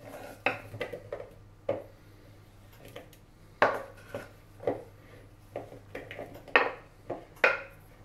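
Chef's knife scraping chopped bell peppers off a wooden cutting board into a bowl: a string of irregular scrapes and knocks of the blade on the board, with pieces dropping into the bowl.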